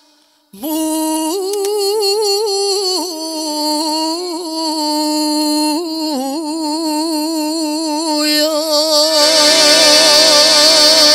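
A woman sings a sevdalinka into a microphone, at first alone, holding long notes with a wide vibrato and ornamental turns. About nine seconds in, instrumental accompaniment comes in beneath her voice.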